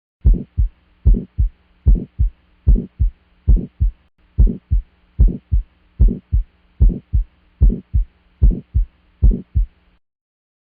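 Heart sounds recorded through a stethoscope: a regular lub-dub, pairs of short low thumps at about 75 beats a minute, over a faint steady hum.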